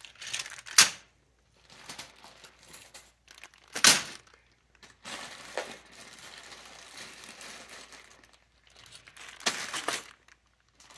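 Small plastic bags of LEGO bricks crinkling as they are handled and tossed onto a pile. Two sharp landings come about a second in and at four seconds, with another crinkly burst near the end.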